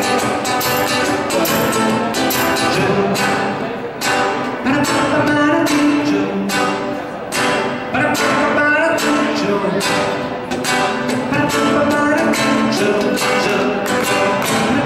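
A man singing into a microphone while strumming an acoustic guitar in a steady rhythm, performed live.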